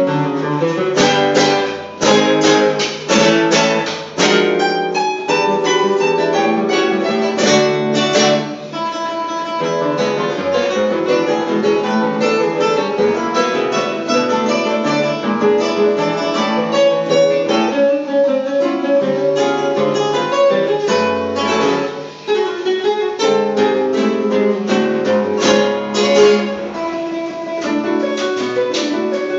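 Trio of nylon-string classical guitars playing a Venezuelan waltz together. Quick strummed chords fill the first eight seconds or so and return near the end, with plucked melody over a bass line in between.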